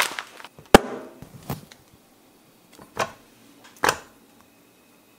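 Kitchen handling sounds: about five sharp clicks and knocks as a paper bag is handled and bananas are put into a ceramic bowl on a kitchen scale, the loudest about three-quarters of a second in.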